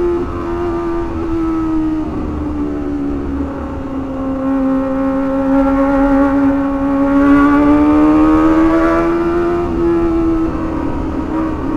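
Kawasaki ZX-25R's four-cylinder engine running under way. Its pitch dips about a second in, climbs slowly, then steps up near the end.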